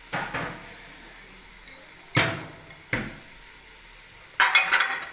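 Spatula and plate knocking and scraping against a metal cooking pot as sautéed vegetables are tipped back in: a few short knocks, then a longer scrape near the end.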